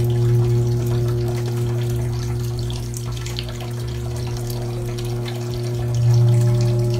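Electric ear irrigator running: a steady low motor hum with water spraying and trickling out, swelling briefly about six seconds in.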